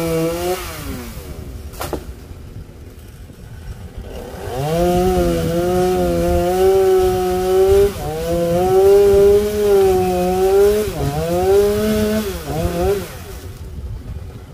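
Two-stroke chainsaw at full throttle, dropping back to idle about a second in. It is revved up again a few seconds later and held while cutting into a tree limb, its pitch sagging a few times under load, then falls back to idle near the end.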